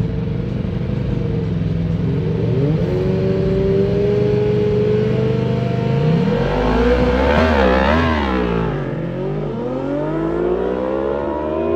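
Two superbikes, an Aprilia RSV4 V4 and a Kawasaki ZX6R inline-four, running and revving at the drag-strip start line. About six seconds in they launch at full throttle, and the engine pitch climbs and drops repeatedly through the upshifts. The note then rises steadily again as they pull away down the strip.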